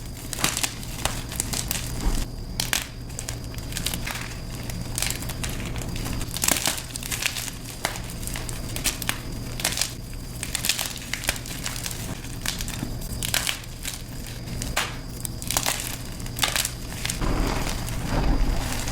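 Blocks of gym chalk being crushed and crumbled, a dense, irregular run of crunches and crisp crackles, growing heavier near the end.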